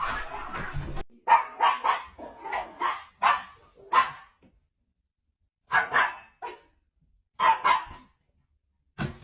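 A dog barking: a run of about seven quick barks, then two shorter groups of barks after a pause.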